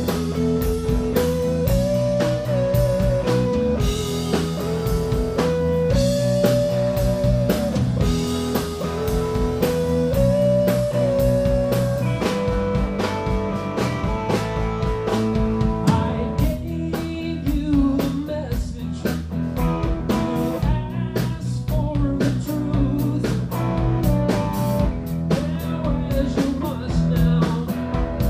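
Live blues-rock band playing with electric guitars, bass guitar and drum kit. A high melody of held, bent notes with vibrato runs through roughly the first twelve seconds.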